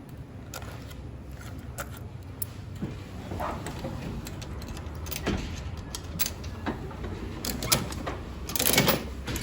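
Scattered clicks and knocks of a coin-operated capsule vending machine being worked, with a louder rattle near the end as a capsule comes out. A steady low hum runs underneath.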